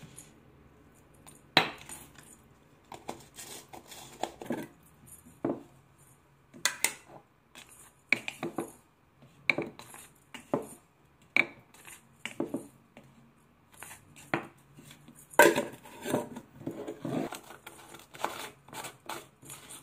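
Glass jars clinking and knocking on a kitchen counter while white laundry powder is poured from one jar into another. There is a series of irregular sharp clinks, the busiest and loudest about two thirds of the way through, then a screw lid being turned on near the end.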